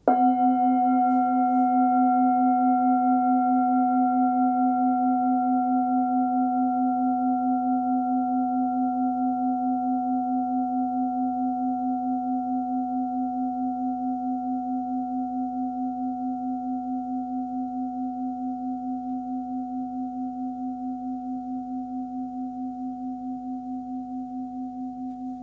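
Forged Tibetan singing bowl, 18 cm across and tuned to C (256 Hz), struck once and left to ring. A deep tone with higher overtones fades slowly, wavering in an even pulse, while the highest overtones die away within the first few seconds.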